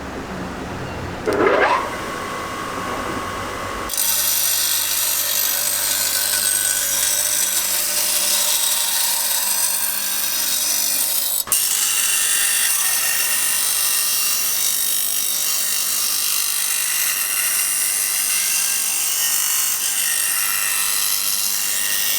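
A tool rasping steadily against a workpiece, starting about four seconds in, with a sharp click about halfway through.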